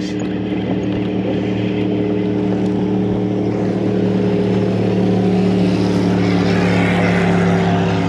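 Motorboat engine droning steadily as a boat passes close by, growing a little louder.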